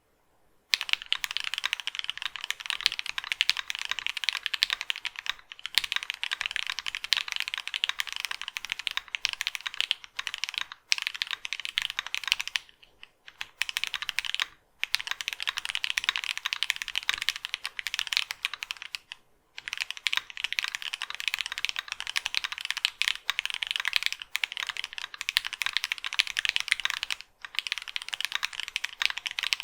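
Continuous fast typing on a mechanical keyboard with hand-lubed JWK Snow White linear switches (polycarbonate top, nylon bottom housing, 64 g spring): a dense run of keystroke clacks, starting about a second in and broken by a few brief pauses.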